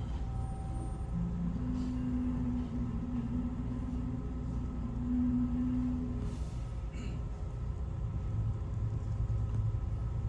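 Cabin hum of a Keio 5000 series train standing at a stop signal: a steady low rumble from its running auxiliary equipment and air conditioning. A steady tone joins in about a second and a half in and stops about six seconds in.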